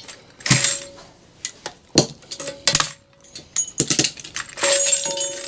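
Metal parts clinking and clattering as an amplifier is taken apart by hand: a string of sharp separate clinks, a couple of them leaving a short metallic ring.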